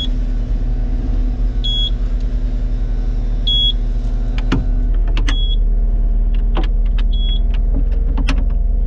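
Kubota compact track loader's diesel engine idling steadily while a cab warning beeper gives a short high beep about every two seconds. A few sharp clicks come in the second half.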